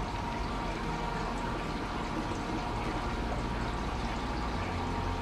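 Hydroponic system's water circulating: a steady trickle and splash of water running through the system, with a faint steady hum from the pump.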